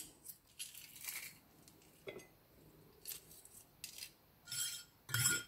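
Metal garlic press and a kitchen knife clicking and scraping against each other as pressed garlic is scraped off the press, in a scatter of short, faint clicks, the last few near the end with a light metallic ring.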